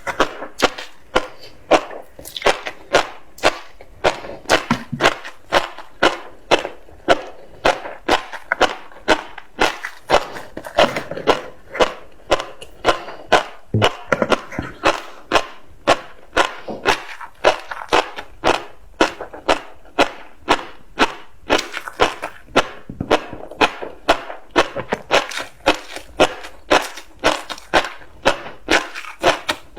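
Close-miked chewing of tobiko (flying fish roe), the small eggs crunching and popping in a steady rhythm of about three chews every two seconds.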